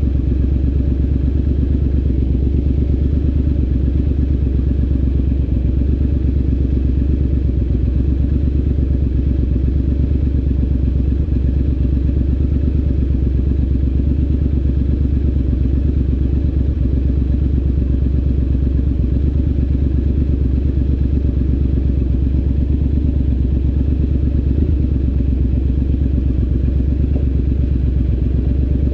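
Triumph Scrambler 900's parallel-twin engine idling through an aftermarket ZARD exhaust, a steady, even low-pitched throb with no revving.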